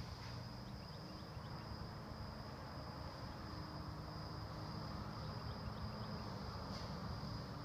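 Insects trilling in one steady, unbroken high note, with a low hum underneath.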